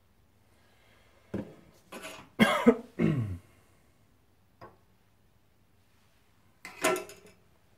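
A man coughing and clearing his throat: a run of short bursts from about one to three and a half seconds in, then one more cough near the end. There is a faint click in between.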